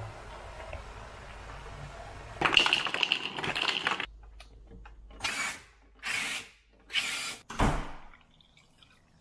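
SodaStream carbonating a bottle of water. After a steady low background, there is a long loud buzzing burst of CO2 about two and a half seconds in, then three short hissing bursts about a second apart and a last shorter release. A faint trickle of water is poured over ice near the end.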